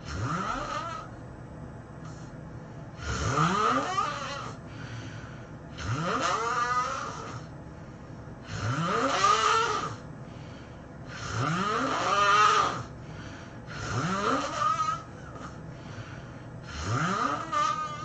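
A sleeping person snoring loudly: seven long snores about every two and a half to three seconds, each one rising in pitch, with quieter breathing between them.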